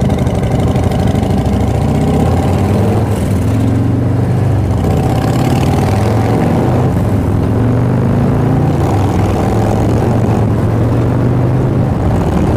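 Harley-Davidson Street Glide's V-twin engine pulling away from a stop and accelerating through the gears, its pitch rising and then dropping at each shift several times, with wind noise. A second motorcycle rides alongside.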